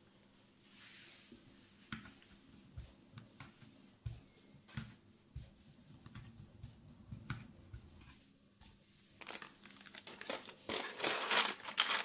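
Kitchen food-prep handling sounds: a run of light taps and knocks, then a louder burst of crinkling and rustling about ten seconds in.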